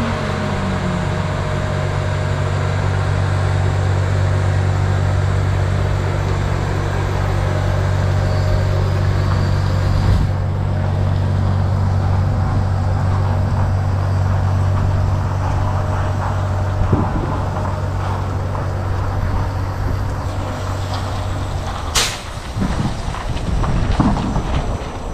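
Wind rumbling on the microphone over a steady low hum in a lot of parked trucks. About 22 seconds in comes one sudden sharp sound, after which the hum stops and uneven low noises follow as the Kenworth T680E battery-electric tractor drives off, itself very quiet.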